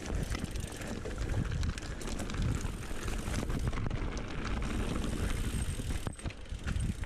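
Mountain bike riding down a dirt trail: tyres rumbling over the ground, the bike rattling with scattered sharp clicks, and wind noise on the microphone.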